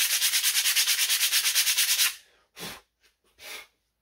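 Sandpaper rubbed quickly back and forth over a disc brake pad's friction face to scuff it, at about eight strokes a second; the sanding stops about two seconds in. Two short puffs of hiss follow.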